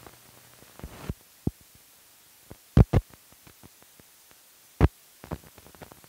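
Scattered clicks and pops over a faint hiss from an old film soundtrack running over black frames and countdown leader. The loudest pops come in a pair about three seconds in and once near five seconds.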